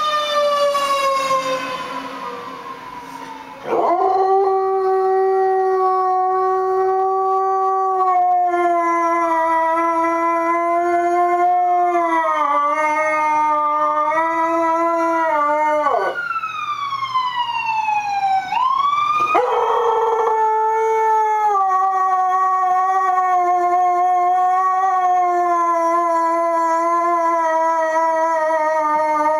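A fire engine siren falls in pitch, then about four seconds in a dog starts howling in long, steady, held notes that keep going with only short breaks, the siren still sweeping up and down behind it at times. The dog is howling in response to the passing fire engine's siren.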